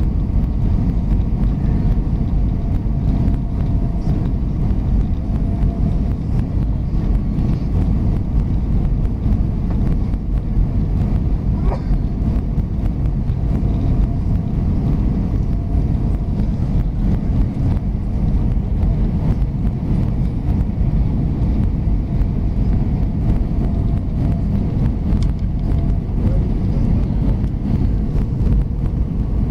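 Steady cabin noise inside an Airbus A320 during descent: a constant low rumble of engines and airflow with a faint steady hum above it.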